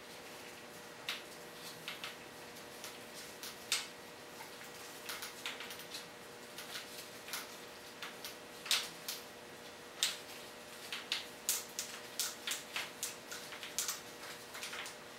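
Light, irregular metallic clicks and taps as a Detroit Diesel Series 53 rocker arm is twisted by hand off its threaded end and the loose rocker parts are handled, coming more often in the second half. A faint steady hum runs beneath.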